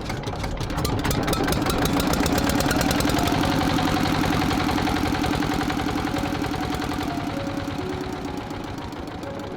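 A small engine running with a fast, even ticking rhythm; it gets louder about a second in and eases off toward the end.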